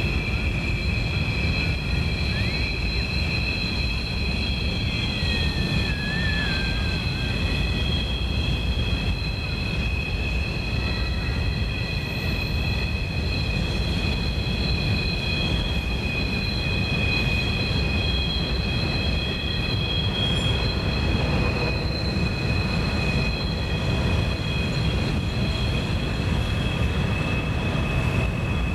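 Train rolling past with steel wheels squealing steadily on the rails: several high squealing tones held together over a constant low rumble.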